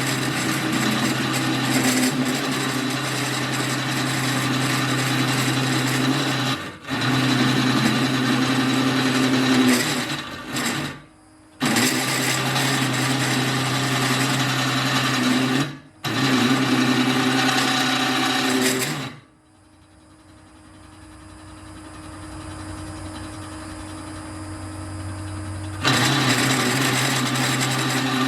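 Drill press motor running while an annular cutter bores through metal, a steady mechanical hum with cutting noise. It is broken into segments by abrupt cuts, and for several seconds near the end drops to a quieter hum that slowly grows louder before the full cutting noise comes back.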